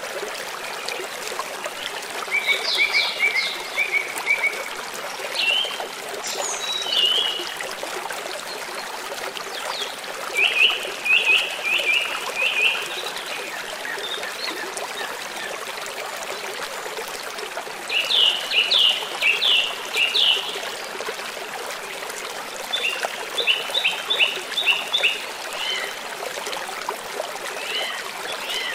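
Flowing river water, a steady rush, with songbirds singing over it. The birds sing several short phrases of quick repeated chirps, coming every few seconds.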